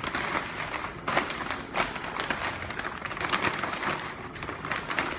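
Plastic shrink-wrap film crinkling and rustling with irregular crackles as it is folded and handled by hand.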